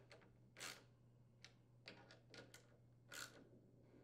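Faint, short rasps of a socket ratchet clicking as nuts are tightened on mounting posts, a handful of strokes with the strongest about half a second and about three seconds in.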